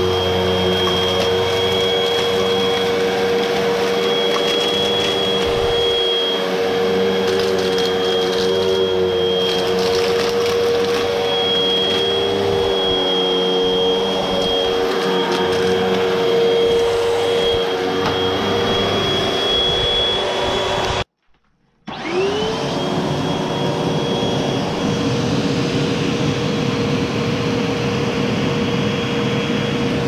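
Hoover WindTunnel 12-amp upright vacuum cleaner running on carpet with a steady whining hum. About two-thirds of the way through it cuts out for about a second, then the motor spins back up with a rising whine.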